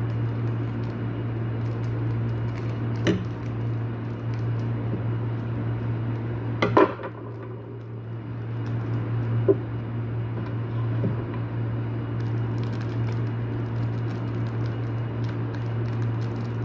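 A few sharp metallic clicks and clinks as the small metal parts of a siren motor are handled while its carbon brushes are being replaced. The loudest clatter comes about seven seconds in, with single taps around three, nine and eleven seconds. A steady low hum runs underneath.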